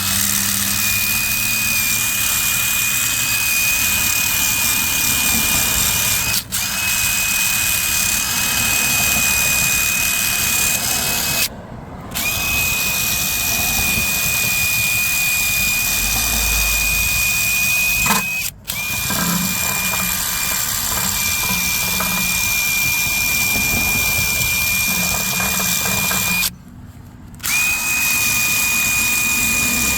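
Handheld power tool running at a steady speed with a high whine, stopping briefly four times and starting again.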